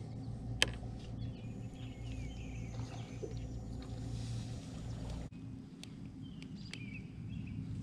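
Birds chirping over a steady low hum, with a few small clicks; the hum stops abruptly about five seconds in.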